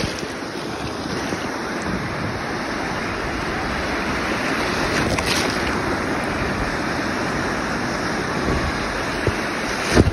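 Sea waves breaking and foaming in the surf around a microphone held just above the water, with wind buffeting the microphone. A short thump near the end.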